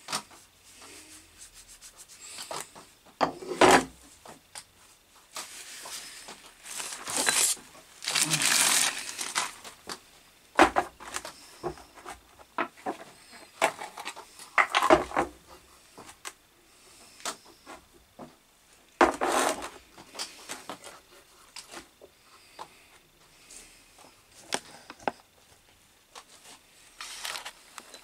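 Hand tools and wood being handled on a metal-topped workbench: irregular knocks, clatter and short scrapes, with a longer rasping scrape about eight seconds in.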